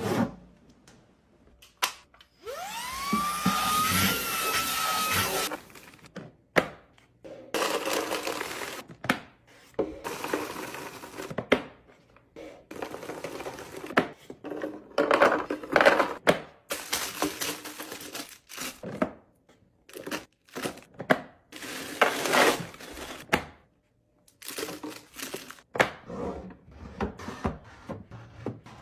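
Handling noises from restocking a kitchen: items and containers knocked and set down with clicks and thunks, and packaging rustling and crinkling. Near the start, a tone rises in pitch for about three seconds.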